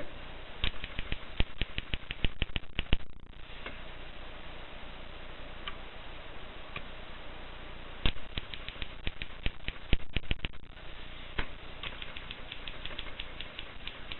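Mercedes portable typewriter being typed on: quick runs of sharp key strikes separated by pauses, over a steady hiss.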